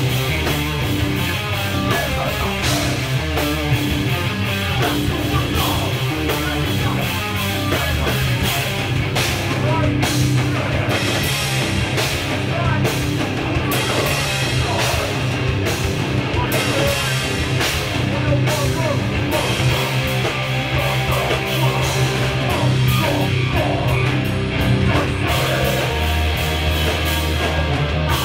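A live heavy metal band playing loud and fast: distorted electric guitars, bass and a pounding drum kit with crashing cymbals, heard through the club room.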